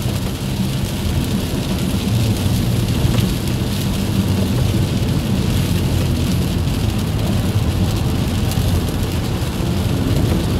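Steady road noise inside a car at motorway speed on a wet road: a low drone from the engine and tyres, with a constant hiss of tyres throwing up water from the rain-covered surface.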